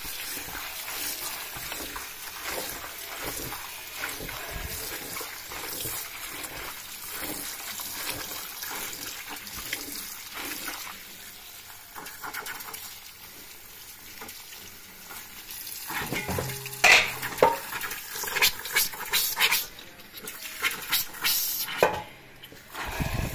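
Food being stirred in a pot or pan on the stove, a steady liquid sizzle broken by small clicks of a spoon. After about 16 seconds, several seconds of louder clattering of cookware and utensils.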